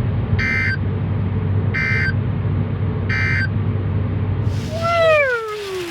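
EAS end-of-message data bursts: three short, buzzy digital beeps about a second and a quarter apart, over a low steady hum, signalling that the alert has ended. Near the end a tone slides downward in pitch.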